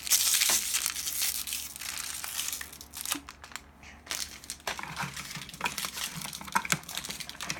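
Plastic toy wrapping crinkling as it is handled and opened. The crinkling is loudest in the first seconds, drops off briefly about three seconds in, then goes on as lighter crinkles and clicks.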